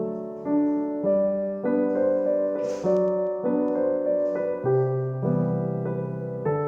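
Piano-style background music, a slow melody over held chords that change every half second to a second. A short hiss sounds about two and a half seconds in.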